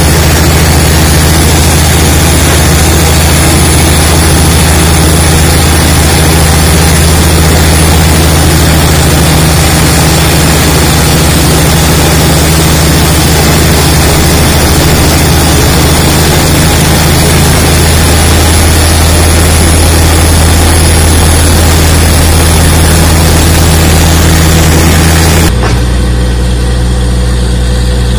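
DTH drilling rig running loud and steady, its engine at about 1,600 rpm under a dense hiss of air drilling. About 25 seconds in, the hiss drops away abruptly, leaving the engine hum.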